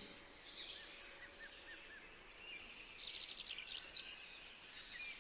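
Faint birds chirping: short, quick high calls in two loose flurries, one in the first half and a busier one past the middle.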